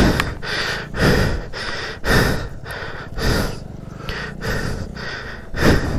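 A person breathing hard close to the microphone, one heavy breath about every second over a steady low rumble: out of breath after a gruelling off-road ride.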